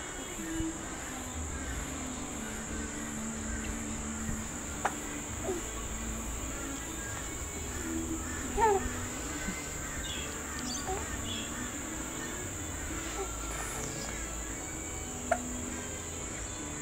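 Faint music of held notes under a steady high-pitched whine, broken by a few brief sounds, the loudest a quick rising squeak about nine seconds in.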